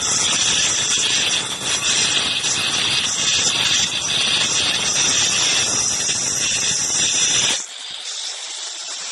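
Handheld electric marble cutter with a diamond blade cutting dry through a stone slab: a loud, steady, gritty high whine. About a second and a half before the end the cutting stops abruptly and only a quieter hiss remains.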